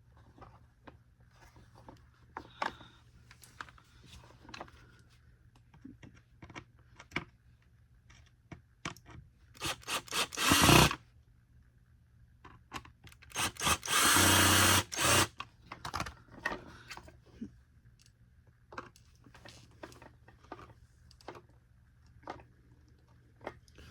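Power screwdriver driving small screws into the vacuum's plastic housing, two short runs about ten seconds in and again about four seconds later, among light clicks and rattles of plastic parts being handled.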